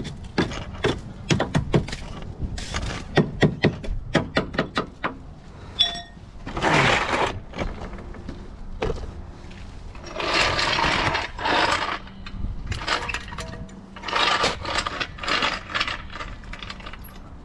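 Quick repeated blows of a metal floor-jack handle chipping packed ice from a car's wheel well, with chunks of ice cracking off and dropping onto concrete. Later come a few longer scraping noises of about a second each, with more knocks.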